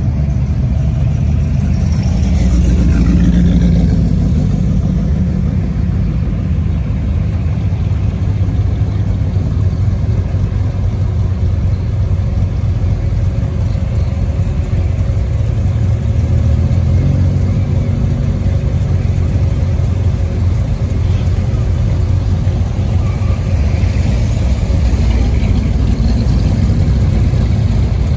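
Classic cars cruising slowly in traffic, their engines running with a steady low sound throughout and an engine swelling briefly about three seconds in.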